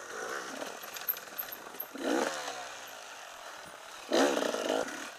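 Enduro motorcycle engine running low on the throttle, with two short revs, about two seconds in and again near the end, and small knocks from the bike on the rough trail.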